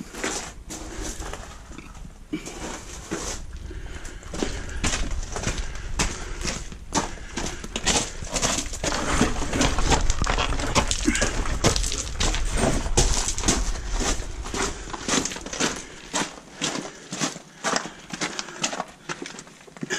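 A hiker's footsteps on a trail, quick irregular steps about two a second, with a low rumble that drops away about three-quarters of the way through.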